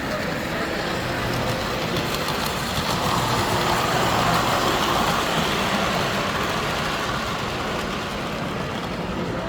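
Model train running on a layout, growing louder and then fading as it passes, loudest about four seconds in.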